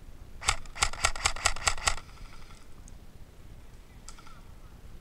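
Airsoft rifle firing a quick string of about eight shots over a second and a half, followed by one faint click near the end.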